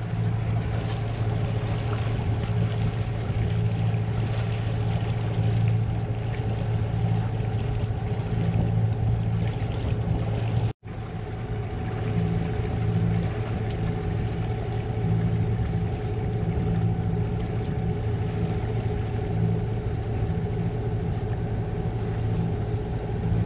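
A boat's engine running steadily with a constant low hum and a wash of water and wind noise. The sound drops out for an instant about eleven seconds in, then carries on the same.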